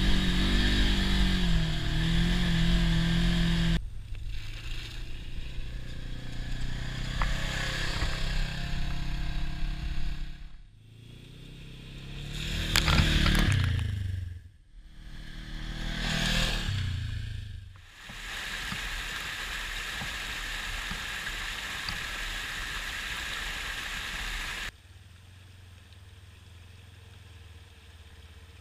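Polaris RZR side-by-side engine running under throttle, heard from inside the machine. After a cut, engine noise comes and goes, with two close passes that rise and fall, then a steady rush, likely a shallow creek, that drops to a quieter steady sound near the end.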